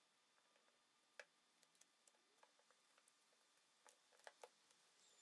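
Faint, irregular light clicks and taps of wooden slats being handled and fitted into a grooved wooden rail by gloved hands, the sharpest just over a second in and two close together about four seconds in.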